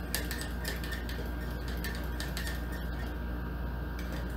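A utensil stirring egg yolks into hot tea in a small cup, clicking against the cup's sides. The clicks come thickly at first and thin out after about two seconds, over a steady low hum.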